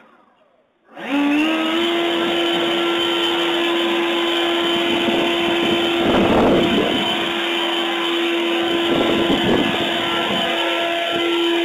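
Atlas 80-volt brushless cordless leaf blower spinning up about a second in, its whine rising briefly in pitch and then holding steady over a strong rush of air. The air rush swells briefly about six seconds in. It is heard through a front-door camera's microphone.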